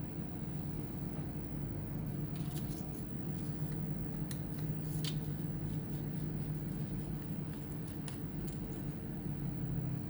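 Small scattered clicks and ticks of hands and a small tool working on a laptop's internals, over a steady low hum.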